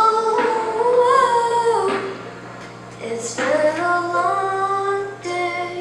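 A boy singing into a microphone through the PA, holding notes and gliding between them in three phrases.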